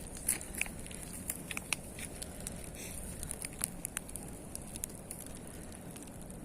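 Bonfire of branch prunings and garden waste crackling, with scattered sharp pops that come thickest in the first few seconds.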